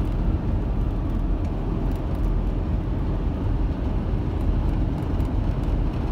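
Sprinter passenger van cruising on the highway, heard from inside the cab: a steady low rumble of road and engine noise.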